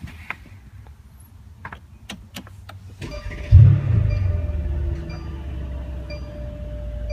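A few sharp clicks, then the 2016 Mercedes-AMG S63's twin-turbo V8 cranks and fires about three seconds in, with a loud flare of revs that eases into a steady idle, heard from inside the cabin. A short high chime repeats about once a second once the engine is running.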